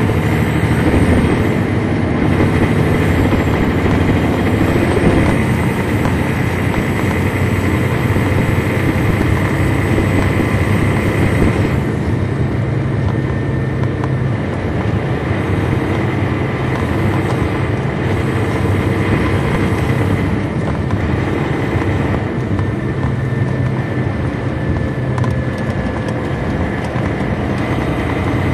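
2003 MCI D4500 coach's Detroit Diesel Series 60 engine running under way, heard from on board the bus, with a steady high whine over the engine. About twelve seconds in, the upper hiss drops away.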